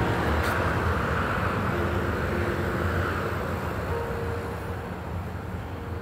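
Steady outdoor background noise with a strong low rumble, with a few faint brief tones in it.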